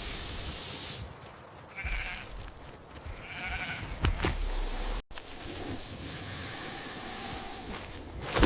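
Sheep bleating: two short bleats about two and three and a half seconds in, then fainter calls later, over a steady hiss.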